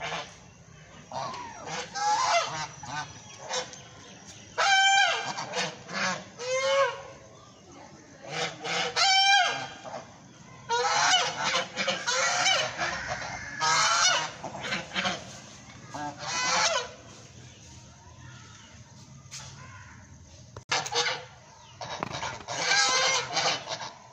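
Several white domestic geese honking, a long run of loud repeated calls with a lull about two-thirds of the way through, then more honks.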